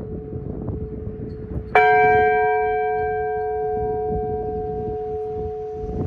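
Bronze church bell struck once about two seconds in, then ringing on and slowly fading, its higher tones dying first. The lower hum of the previous stroke is still sounding before the strike.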